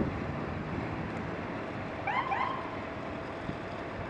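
Steady road-traffic noise at a busy intersection. About two seconds in, two short high squeaky calls that bend up and down.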